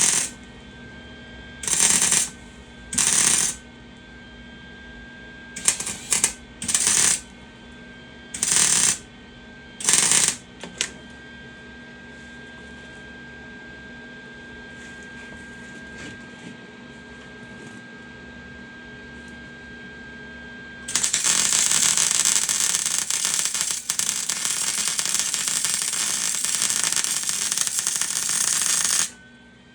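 Electric arc welding: a run of short tack welds, each a burst of arc noise of about half a second, then one continuous weld lasting about eight seconds near the end. Between the welds the welder's steady hum is heard.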